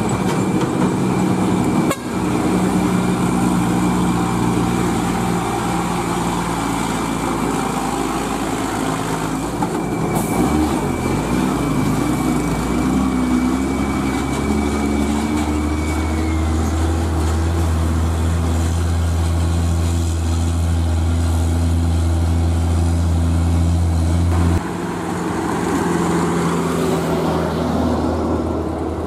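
Heavy diesel truck engines pulling uphill under load as the trucks pass close by, the first being a Hino Ranger FM 320TI tractor-trailer. A steady high whine sits over the engine for roughly the first half. The low engine drone grows louder about halfway through and drops off suddenly near the end as another truck comes up.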